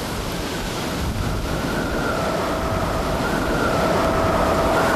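Truck on the road: steady engine and road noise that grows a little louder, with a faint steady whine coming in about two seconds in.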